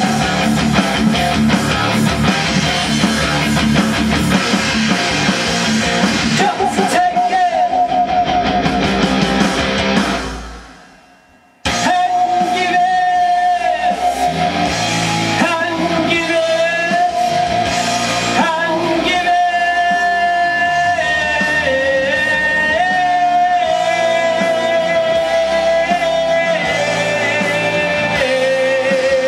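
A man singing over a recorded backing track. About ten seconds in, the music fades out to near silence, then starts again suddenly, with long held notes.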